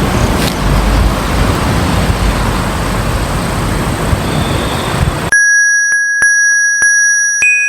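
A loud, even rushing noise, heaviest in the low range, cuts off abruptly after about five seconds. A steady high electronic tone with regular clicks follows, and near the end a second, higher tone joins in as chime-like music begins.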